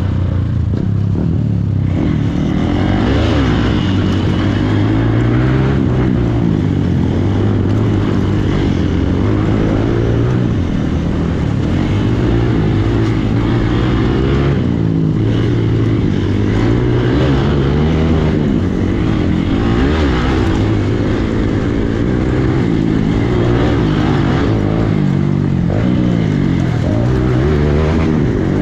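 Hero XPulse motorcycle's single-cylinder engine running under way off-road, its revs rising and falling continually with the throttle.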